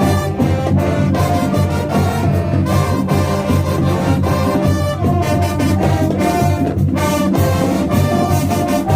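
High school marching band playing loud and full, the brass section (trombones, trumpets, sousaphones) carrying the tune over a steady drumline beat.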